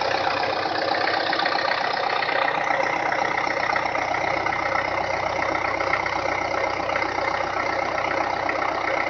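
MTZ-82 tractor's four-cylinder diesel engine idling steadily after a cold-weather start aided by a preheater.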